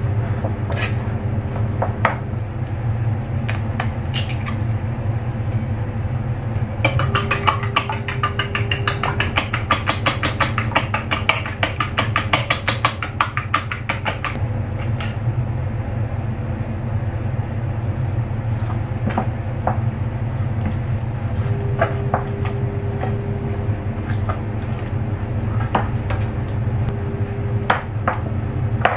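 A silicone spatula scrapes and stirs thick green tea mochi dough in a stainless steel saucepan, with scattered knocks against the pan. For several seconds in the middle, eggs are beaten fast in a small stainless steel bowl, a rapid, even clatter of metal on metal. A steady low hum runs underneath.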